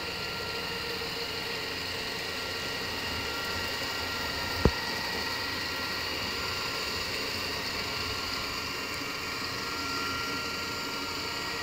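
Ecovacs Deebot M80 Pro robot vacuum running as it drives across a hard floor: a steady whir with a few faint high tones in it. A single sharp click about four and a half seconds in.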